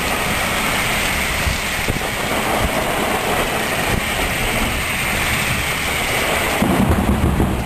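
Storm wind and rain rushing steadily and loudly over the microphone, with low buffeting rumble, swelling into a louder low rumble about seven seconds in.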